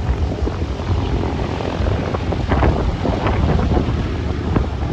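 Boeing B-17G Flying Fortress's Wright R-1820 Cyclone radial engines running at taxi power as the bomber taxis. The sound is a steady, loud, low propeller-and-engine rumble.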